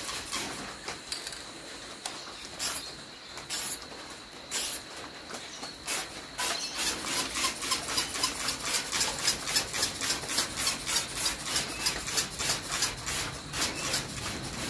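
Trigger spray bottle squirting short hissing sprays onto sheet metal: a few spaced squirts at first, then a fast, even pumping of the trigger at about four squirts a second from about halfway in.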